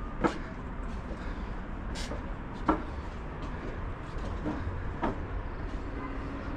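Footsteps climbing stone steps: four sharp scuffs and knocks spaced a second or more apart, over a steady low rumble.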